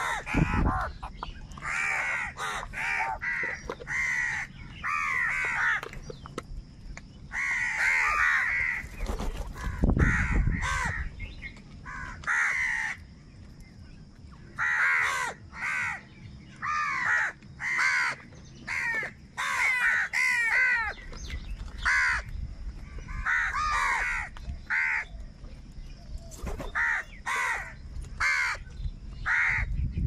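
A flock of house crows cawing repeatedly, several birds calling in quick runs and over one another, with a short lull about halfway through. A brief low rumble sounds about ten seconds in.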